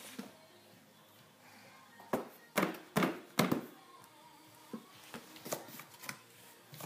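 Sharp knocks and thumps on a cardboard box: four strong ones in quick succession about two seconds in, then a few softer ones.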